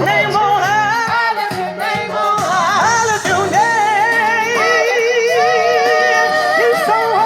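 Live singing: one voice holding long notes with a strong, even vibrato and running through melodic turns, with little else under it.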